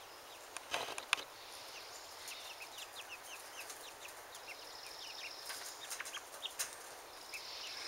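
Young chickens cheeping softly: a scatter of short, falling chirps.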